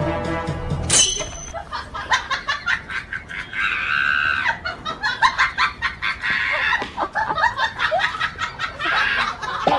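Chickens squawking and clucking in repeated bursts, with scuffling and clicking as they fight a dog through a metal gate. Music cuts off about a second in.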